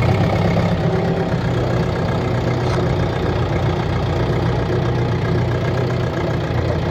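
Agriso 40 hp tractor's diesel engine running steadily.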